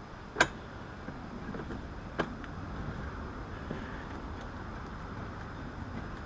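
Two sharp knocks from handling the bolts and tools while a harness bar is bolted into a car, the first about half a second in and the louder, the second about two seconds later, over a steady low rumble of background noise.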